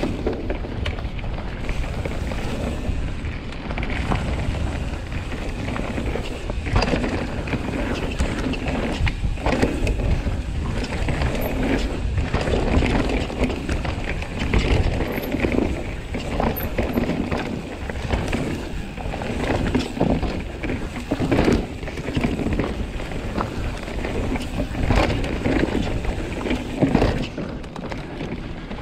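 Commencal Meta mountain bike descending a dirt forest trail: tyres rolling over dirt and roots, chain and frame rattling, with frequent knocks over bumps throughout.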